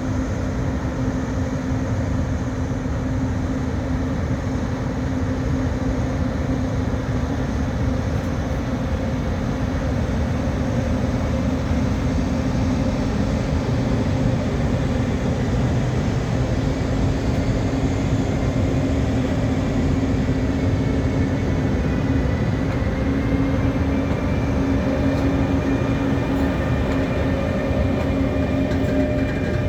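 Freight train locomotive running with a steady low drone and hum. Faint higher whining tones join in about two-thirds of the way through.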